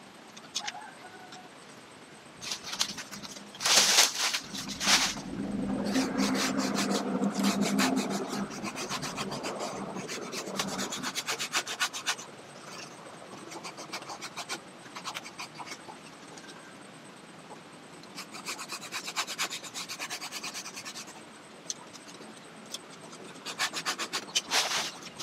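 Hand pruning saw cutting through a live lychee branch: bouts of quick back-and-forth rasping strokes with short pauses between them.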